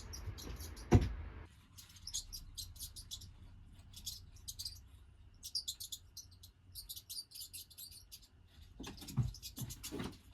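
Rapid, very high-pitched squeaks and chirps from a video made for cats, the kind of small-animal sounds such videos play. There is a sharp knock about a second in and a couple of softer knocks near the end.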